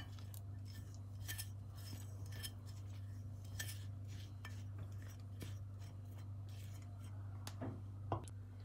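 Silicone spatula scraping and tapping spices off a plate into a glass bowl: faint, scattered light clicks and scrapes of utensil on dishware over a steady low hum.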